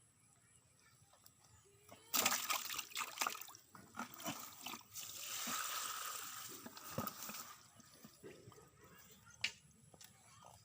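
Water splashing and sloshing in a run of sharp splashes, starting about two seconds in and dying away after about seven seconds.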